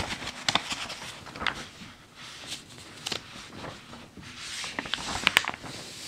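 Pages of a vintage 1940 magazine being turned by hand, paper swishing and crinkling in a series of short rustles. The loudest come about five seconds in.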